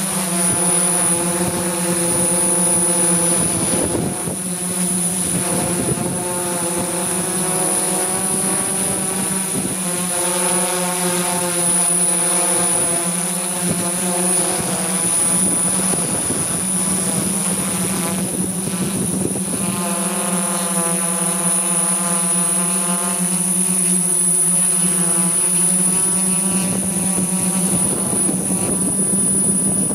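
Camera drone's propellers and motors running in flight, heard close up: a steady multi-tone drone whose pitch wavers slowly as it manoeuvres, over a thin, steady high whine.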